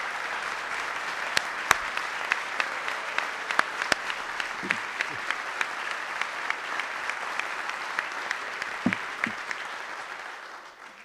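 An assembly audience applauding steadily, with a few sharp claps close by standing out at a regular beat of about three a second. The applause dies away near the end.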